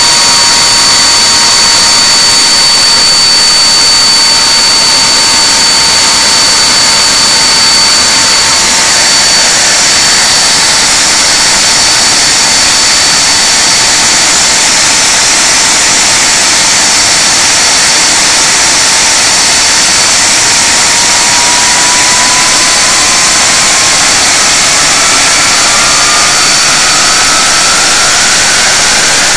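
Rolls-Royce Conway turbofan engines of a Handley Page Victor K2 running on the ground: a loud, steady jet roar with a high whine over it. In the last several seconds a whine rises in pitch as the engine speed increases.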